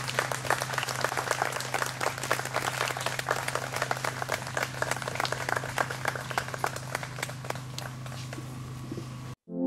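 Audience applauding, a dense irregular clatter of many hands clapping that cuts off abruptly near the end.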